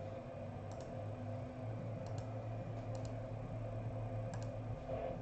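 A few faint, scattered clicks over a steady low electrical hum.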